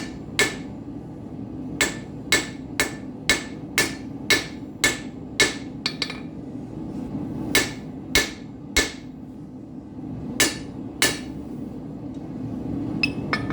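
Hammer blows ringing on an anvil as a hot nail is forged to a point: a run of about eight strikes at roughly two a second, then a few scattered blows, stopping near the end. Under them runs the steady drone of a gas forge's burner.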